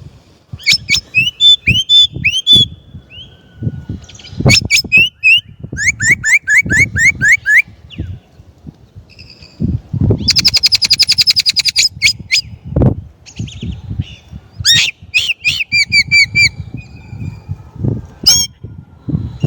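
Chinese blackbird singing: phrases of quick, repeated slurred whistles, with a fast rattling trill about ten seconds in. Low thumps and rumble run underneath.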